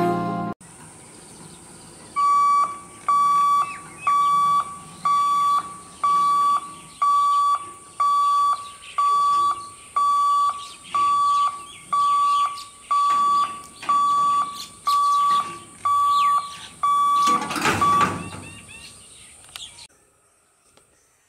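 Railway level-crossing warning alarm sounding: a high electronic beep repeated about once a second. A brief whoosh cuts in near the end.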